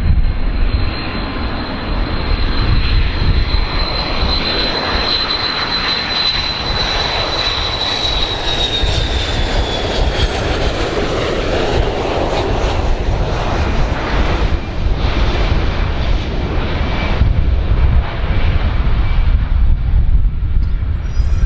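Boeing 727 jet engines running on landing approach: a steady roar with a high whine that drops in pitch about eight to ten seconds in as the aircraft passes.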